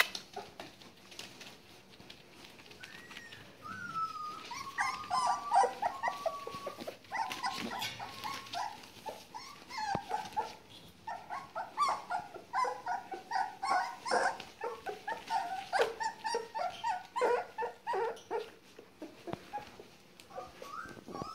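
Young border collie puppies, about four weeks old, whining and yipping in many short, high calls while they play together.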